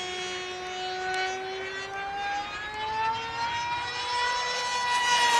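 Engine of a high-speed RC delta-wing model aircraft droning in flight, a steady buzzing tone whose pitch slowly rises, then drops sharply near the end as it grows louder and passes by.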